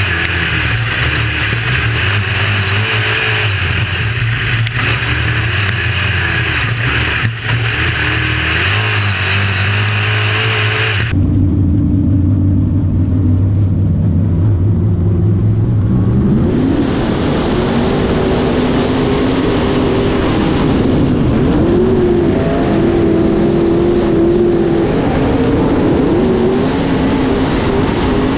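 UMP dirt modified race engines heard from inside the cockpit at racing speed, the revs rising and falling through the corners. About eleven seconds in the sound switches abruptly to a second car's in-car engine, duller at first, then climbing in pitch as it accelerates.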